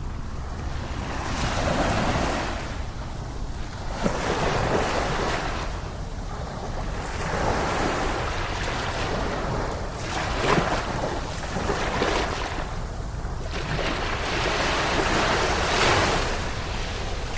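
Ocean waves breaking on a beach, the surf swelling and falling back every few seconds, over a steady low rumble of wind on the microphone.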